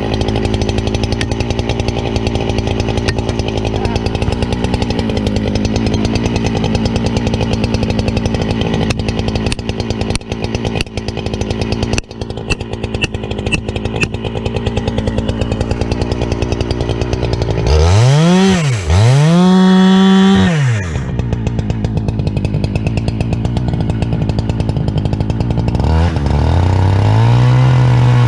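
Husqvarna 395 two-stroke chainsaw running steadily under load in a crosscut through a log, with a few sharp knocks partway through. About 18 seconds in it is revved up to full throttle twice and let back down, then runs lower before rising again near the end.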